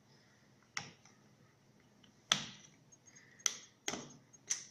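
Five sharp little clicks and taps, irregularly spaced and the middle one loudest: fingers and plastic parts clicking as a cable connector is worked loose from a fusion splicer's screen circuit board.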